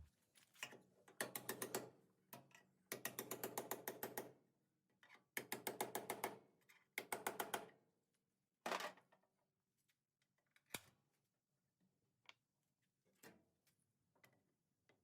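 Hand ratchet wrench clicking in short, quick runs, about eight clicks a second, four runs over the first eight seconds. A single sharper knock follows, then a few faint scattered taps.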